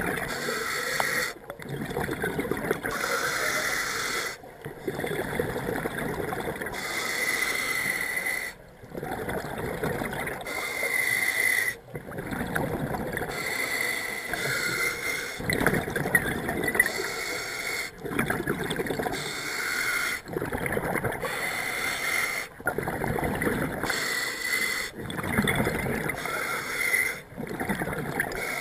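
A scuba diver breathing through a regulator. A hissing inhale through the demand valve alternates with a bubbling exhale, the cycle repeating every few seconds.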